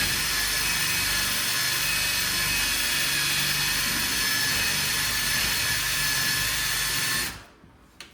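Power drill running steadily under load as it drills out a hole, then stopping abruptly about seven seconds in; a small click follows.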